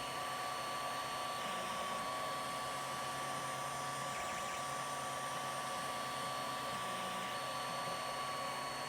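Tronxy 3D printer running a print: the cooling fan gives a steady whir with a constant whine, while the stepper motors hum in tones that change every second or so as the print head moves.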